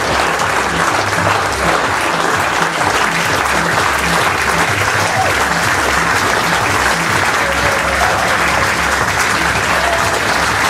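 Audience applauding steadily, with music with a regular beat playing underneath.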